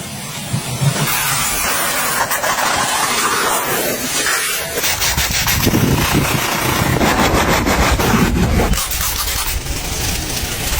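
Pressure washer spraying water, a steady hiss with a low rumble underneath that grows heavier about five seconds in.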